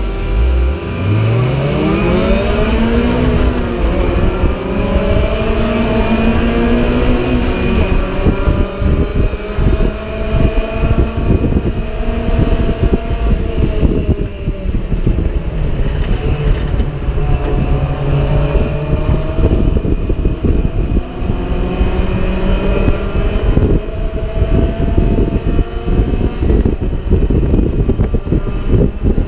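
Mazda MX-5 race car's four-cylinder engine heard from inside the car, accelerating hard through the gears: the engine note climbs steeply and drops back at each gear change. Loud wind and road noise run underneath.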